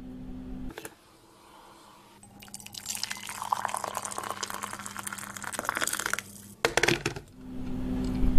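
Liquid being poured, a crackling, splashing stream from about two to six seconds in, framed by a low steady hum, with a short clatter of clicks just after the pour.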